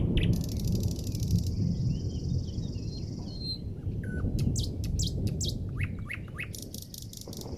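Several songbirds chirping and singing in short, quick notes, with a high buzzy trill in the first second or so, over a steady low rumble.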